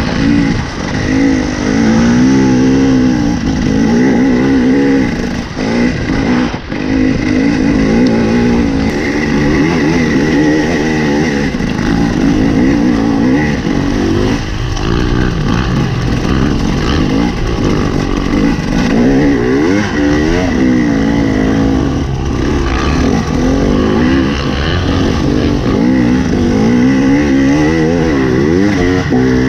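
Dirt bike engine heard from on board the bike, revving up and down again and again as it rides over sand and gravel, dipping briefly about six seconds in.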